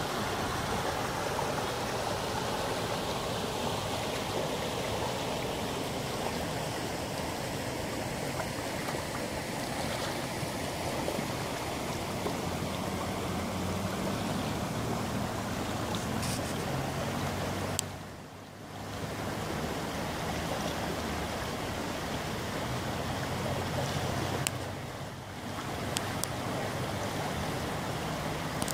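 Muddy floodwater from a rain-swollen river rushing steadily over its rocky bed: a constant noisy wash that briefly dips twice.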